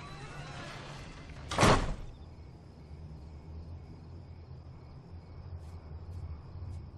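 A door creaking as it swings shut, then slamming once about a second and a half in, the loudest sound. A low steady drone continues underneath afterwards.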